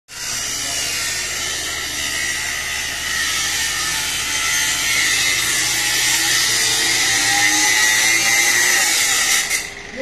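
Power cutting tool cutting through steel reinforcing rod (rebar), a steady high-pitched grinding that stops abruptly near the end.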